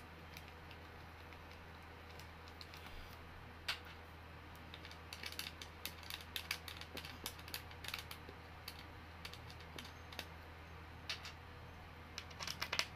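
Scattered small metal clicks and light rattling as an Allen key and chair bolts are handled and turned during assembly, bunching into quick runs of clicks about five to seven seconds in and again just before the end. A steady low hum runs underneath.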